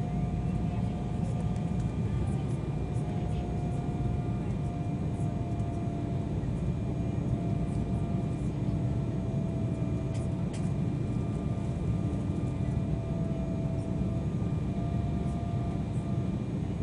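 Cabin noise inside an Embraer 190 airliner in flight on its descent: a steady rush of airflow and GE CF34 turbofan engine noise, with a few faint steady whining tones over it.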